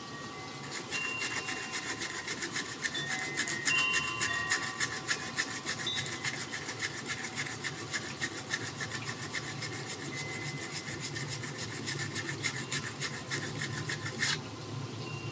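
Sandpaper rubbed by hand over the bare wood of a forest red gum didgeridoo in quick, even back-and-forth strokes. The strokes start just under a second in and stop about a second before the end.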